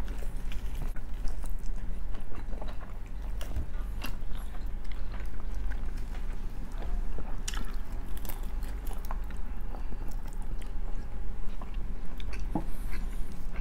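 Close-miked eating of pork: biting and chewing, with scattered crisp crunches and mouth clicks, over a steady low hum.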